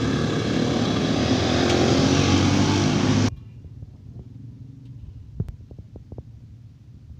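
Loud, steady sizzling of a wok of hot oil deep-frying fritters over a gas burner, cutting off suddenly about three seconds in. After that, faint clinks of plates and utensils.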